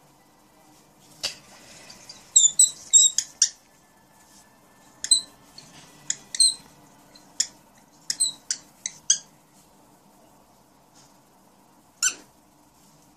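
Cockatiel giving short, high chirps in scattered bursts of one to five, the loudest cluster about two to three seconds in.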